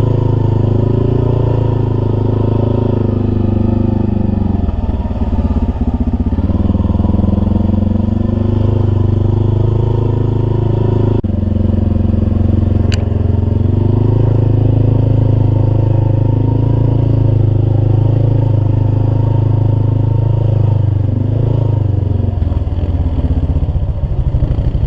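Big mud-racing truck engine running loud, its pitch dropping and climbing again as the throttle is worked, with an abrupt break about eleven seconds in.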